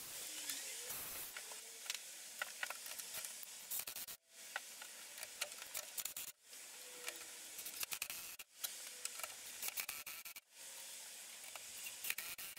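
Ryobi One+ cordless driver faintly running in short spells with small clicks as screws are driven into wooden shelf slats, broken by abrupt silences about every two seconds.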